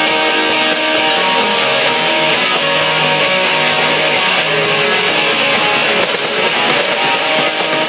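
Live amateur rock band playing: strummed electric guitars over a drum kit, with regular cymbal strikes.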